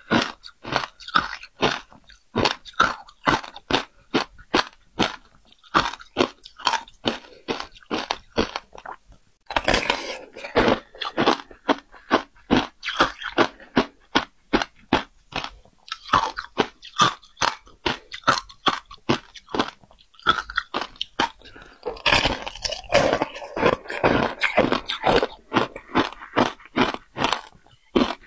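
Close-miked crunching and chewing of ice coated in passion fruit pulp: rapid crisp crunches a few times a second, with a short lull about a third of the way in.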